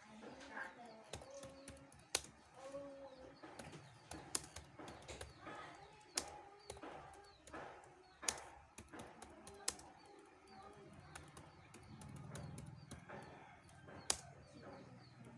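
Computer keyboard being typed on: scattered quiet key clicks with four sharper, louder keystrokes spread through the stretch.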